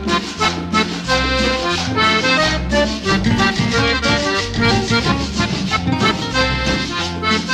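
Cumbia music led by accordion over a steady bass beat.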